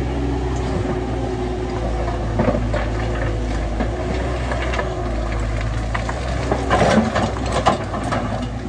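Heavy diesel construction machinery running steadily, with scattered metallic clanks and knocks that bunch together about seven seconds in.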